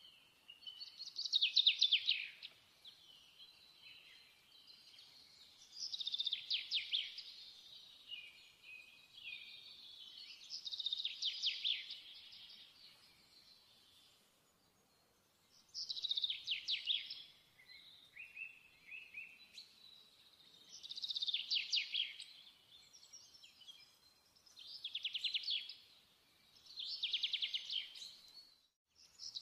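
Songbird singing: about seven high, rapid trilled phrases, each about a second long and a few seconds apart, with softer chirps between.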